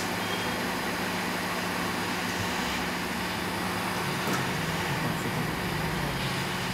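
Hot air rework station blowing a steady hiss of air with a low hum, heating a phone motherboard's CPU to melt its solder and lift the chip off. A faint tick about four seconds in.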